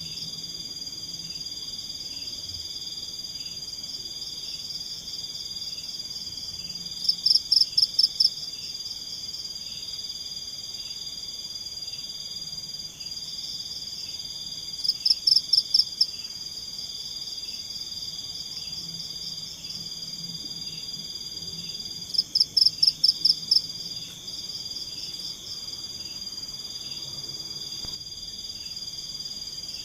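Tropical forest night chorus of insects and frogs. A steady high-pitched trill runs with a faint regular ticking. Three times, about every seven to eight seconds, a loud rapid run of about eight clicking notes cuts in and lasts just over a second.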